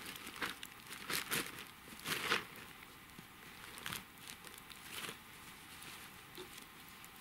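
Rustling and crinkling of a bag as fishing gear is rummaged through and pulled out. There are a few louder rustles in the first two and a half seconds and softer ones after.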